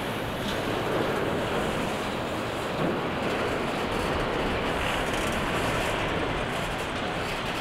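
Freight train of autorack cars rolling past close by, a steady, even rumble of wheels on the rails.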